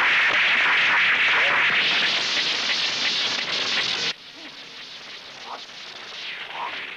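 A loud, steady hiss on a film soundtrack cuts off suddenly about four seconds in, leaving only faint, quieter sounds.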